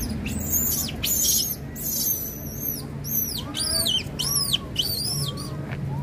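A quick series of about ten high-pitched arching calls from an animal, each a fraction of a second long and rising then falling in pitch, ending about five seconds in.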